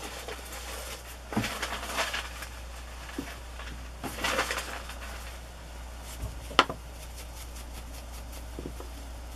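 Hands working with a rubber stamp and paper scraps on a craft table: two spells of soft rustling and rubbing, and one sharp tap about six and a half seconds in.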